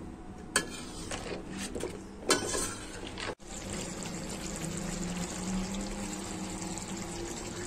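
A metal spatula knocks twice against a karahi as chicken pieces are stirred. After a short break, the chicken simmers and bubbles steadily in its juices in the pan.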